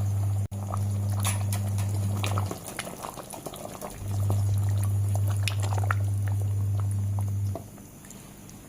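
A steady low electrical hum cuts out about two and a half seconds in, returns about a second and a half later, and stops again near the end. Under it come faint scattered pops and crackles from the pot of chicken gravy simmering.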